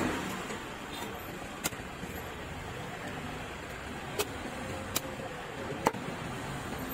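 Long fish knife cutting through a giant trevally's head on a wooden chopping block, with several sharp knocks of the blade against the wood. Under it runs a steady hum of road traffic.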